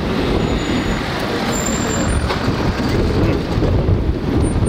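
Street background noise: a steady rumble of passing traffic mixed with wind buffeting the microphone.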